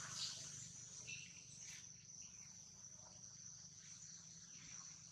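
Faint, steady, high-pitched drone of insects calling, with a couple of faint brief sounds in the first two seconds.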